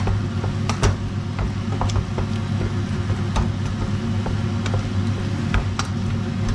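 A steady low mechanical hum with scattered sharp pops and clicks from food cooking in a pan.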